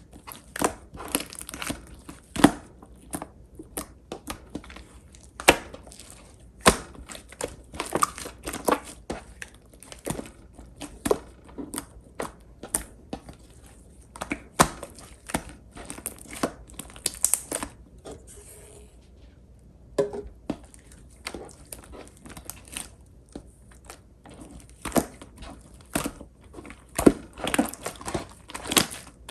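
Clear slime squeezed and pressed by hand, giving irregular sharp pops and crackly clicks as trapped air bubbles burst, with a sparser stretch about two-thirds of the way through.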